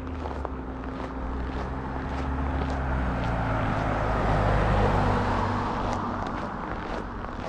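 A motor vehicle passes on the road. Its engine hum and tyre noise grow louder to a peak about four to five seconds in, then fade. Regular footsteps on snow sound at the start and again near the end.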